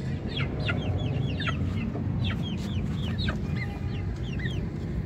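Chickens calling: a rapid run of many short, high, falling chirps, over a steady low rumble.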